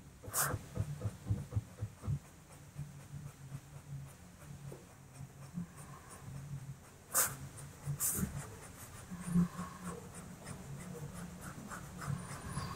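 Colour shaper's rubber tip rubbing and tapping over pastel on textured pastel paper, quiet and uneven, with three sharp clicks: about half a second in, about 7 seconds in and about a second later.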